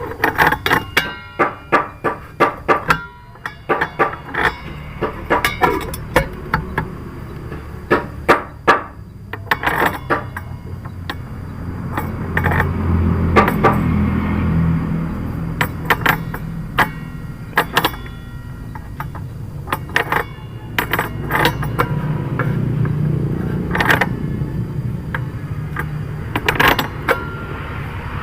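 Irregular sharp metallic clinks and knocks of hand tools and saw parts being handled while a circular saw blade is fitted. A low hum swells in the middle and again later.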